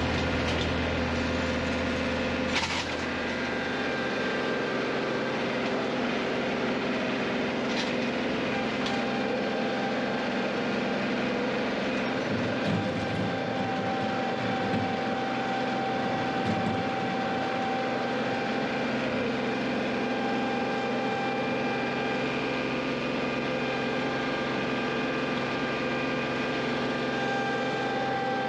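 John Deere compact tractor's diesel engine running steadily as the tractor drives, heard from the operator's seat, with a few short knocks in the first several seconds.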